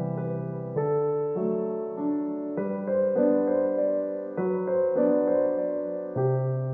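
Piano music, a new note or chord struck roughly every half second to second.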